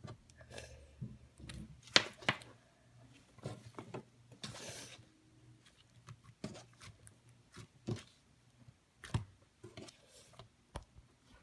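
Light pink slime being squished and stretched by hand, giving irregular sharp sticky pops and clicks, the loudest about two seconds in, with a short soft hiss a little before the middle.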